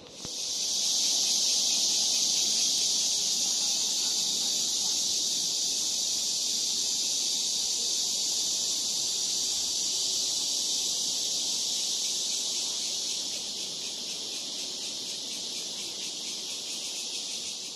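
Cicadas droning: one loud, steady, high-pitched buzz that sets in sharply and eases a little in loudness in the last few seconds.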